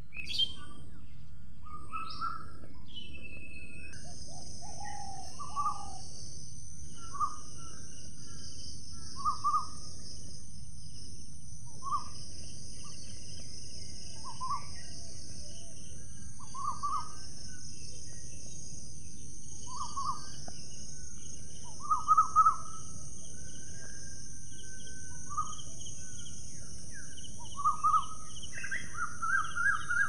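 Birds calling: short notes repeated every second or two, a few louder ones in the second half. A steady high-pitched buzz starts about four seconds in, all over constant background noise.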